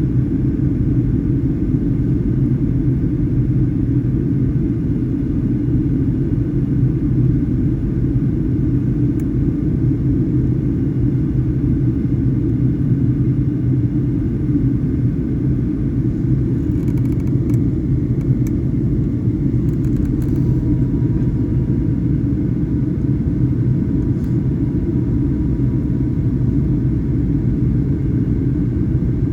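Steady low rumble of a Boeing 737-800 in flight, the CFM56-7B engines and airflow heard inside the cabin. A faint steady tone comes in about twenty seconds in, and there are a few light ticks shortly before it.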